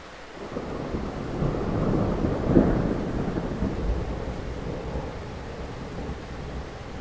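A deep rumble swells in about half a second in, is loudest around two and a half seconds, then settles to a lower, steady rumble.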